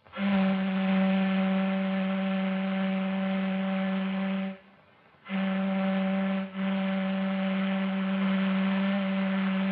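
Ship's whistle blowing three steady, low blasts: a long one, then after a short pause a brief one that runs almost straight into another long one.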